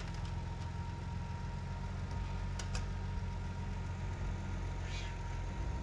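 Pickup truck engine idling steadily with a low hum, with a couple of faint clicks about halfway through and a short rattle near the end.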